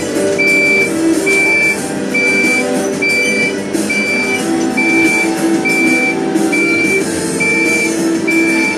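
Hidromek 102B backhoe loader's reversing alarm beeping: short, even, high beeps a little faster than one a second, heard from inside the cab.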